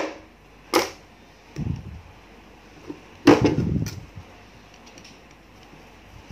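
Small steel parts of a Komatsu PC200-8 hydraulic safety relief valve clicking and tapping as they are handled and prised at by hand. There is a sharp click about a second in and a louder knock a little after three seconds, with faint taps between.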